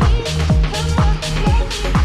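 Background music with a steady kick-drum beat, about two beats a second, and a short repeating melody.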